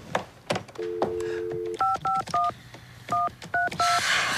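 Telephone dial tone for about a second, then touch-tone keypad beeps as a number is dialled: three beeps, a short pause, then four more.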